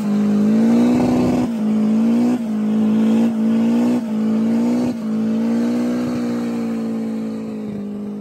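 Hemi-swapped early-1970s Toyota Corolla doing a burnout: the engine held at high revs with brief dips about once a second while the rear tyres spin and squeal in clouds of smoke. Near the end the car drives off and the engine fades away.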